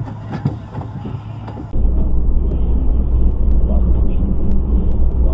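Steady, deep road and engine rumble heard inside a car travelling at about 70 km/h. It starts abruptly about two seconds in and is the loudest sound. Before it comes a quieter stretch of car noise with voices.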